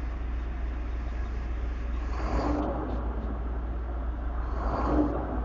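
Volvo semi truck's diesel engine idling with a steady low hum, revved up briefly twice as the accelerator pedal is pumped: once about two seconds in and again near the end.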